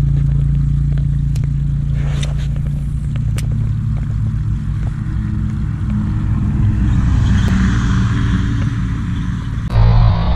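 An engine running steadily at a low, even pitch, with a few faint sharp clicks over it. The sound changes abruptly near the end.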